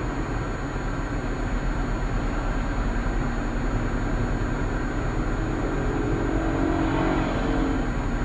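Steady engine and road noise inside a moving car, picked up by its dash cam microphone, with an engine note rising near the end.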